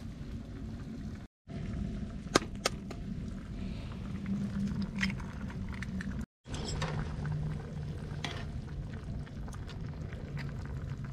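Wood fire crackling in a grill under a mess tin. About two and a half seconds in, an egg is cracked with two sharp taps on the mess tin, and later chopsticks lightly stir the egg in the tin with small clicks and scrapes.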